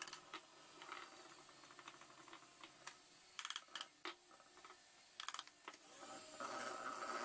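Faint scattered clicks and taps of utensils against a mixing bowl, some in quick little clusters, as flour is added to whipped egg batter. Near the end an electric mixer starts up and runs steadily.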